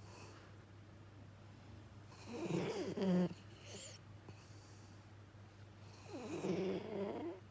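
Labrador–Schnauzer mix dog snoring in deep sleep: two drawn-out snores, one about two seconds in and one about six seconds in, each lasting about a second.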